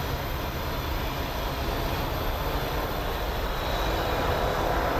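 Freight train led by an EMD SD60E diesel locomotive approaching down the line: a steady rumble that grows a little louder over the last couple of seconds.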